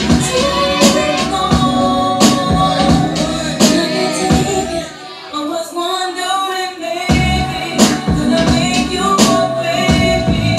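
Dance track with a steady beat and singing played loud through a club sound system. For about two seconds in the middle the bass and drums drop out, leaving the vocal alone, and then the full beat comes back in.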